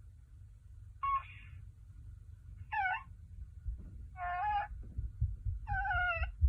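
Sound box in a Build-A-Bear plush of The Child playing his recorded baby-like coos and squeaks: four short calls, each about half a second, roughly a second and a half apart. A low rumble and a few dull thumps of the toy being handled run underneath.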